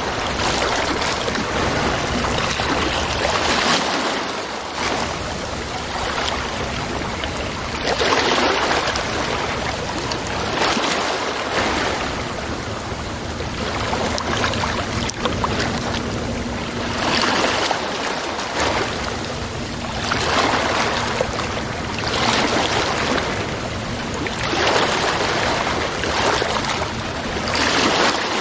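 Steady rushing noise like surf or flowing water, swelling and ebbing every few seconds.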